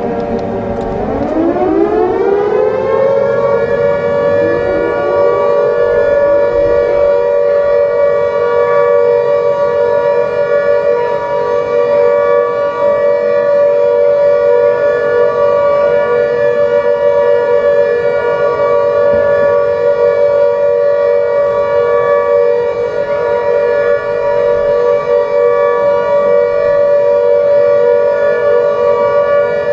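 A siren winds up from a low pitch over the first few seconds, then holds a steady wail, with two close pitches sounding together.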